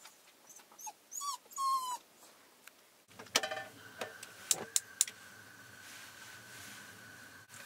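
A dog whining twice in short cries that bend in pitch. A few sharp clicks and clatters follow, then a faint steady high tone.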